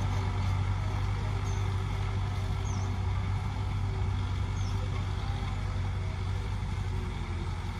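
Tractor engine running steadily under load while pulling a disc plough, a constant low hum.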